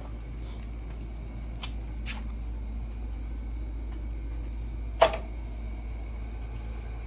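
A steady low hum with a few light clicks and one sharp knock about five seconds in.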